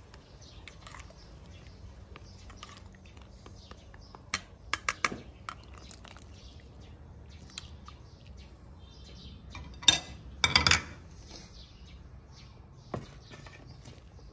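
Metal ladle scraping and knocking against a bowl and the rim of a stainless steel cooking pot as a paste is stirred into boiling broth: scattered light clinks about four to five seconds in, and two louder clatters about ten seconds in.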